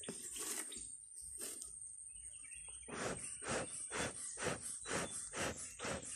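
Bee smoker's hand bellows being squeezed, each squeeze a short puff of air forced through the smouldering canister: two puffs in the first couple of seconds, then a steady run of about two puffs a second from about three seconds in. A steady high insect trill underneath.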